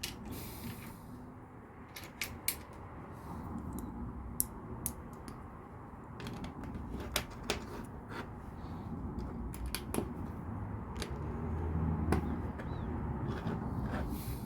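LEGO plastic pieces being handled and clicked together, as irregular sharp clicks and taps over a low background hum.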